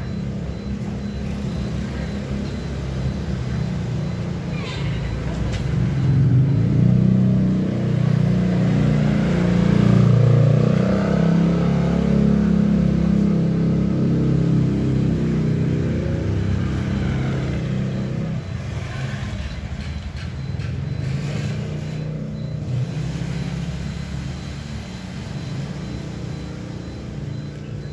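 Motor vehicle engine running nearby, getting louder over the first several seconds, strongest around the middle, then fading toward the end.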